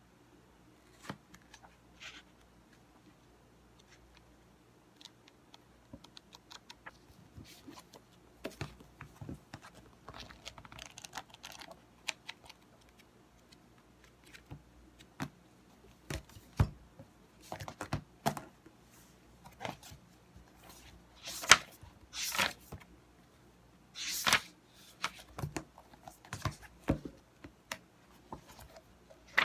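Paper planner pages being flipped and notebooks handled on a desk: scattered light rustles and taps that grow into louder page-flipping swishes and knocks of books being set down in the second half.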